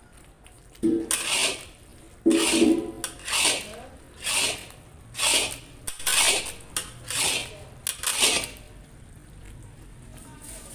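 Long metal spatula scraping and stirring thick, grainy milk mawa around a black iron karahi, in rasping strokes roughly one a second. There are a couple of ringing clanks of metal on the pan in the first few seconds, and the strokes die down near the end.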